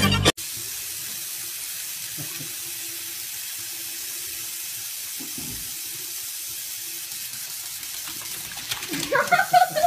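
Bathroom sink faucet running: a steady stream of water splashing into the basin. Some short pitched sounds come in near the end.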